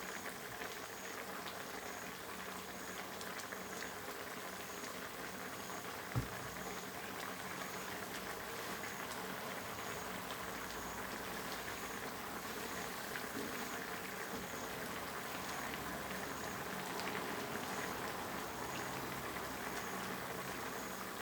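Pot of red curry with chicken and pickled bamboo shoots bubbling steadily at a boil. A single light knock about six seconds in.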